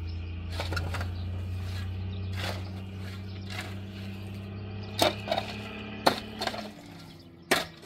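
Irregular sharp knocks and clicks over a low steady hum; the hum drops away near the end.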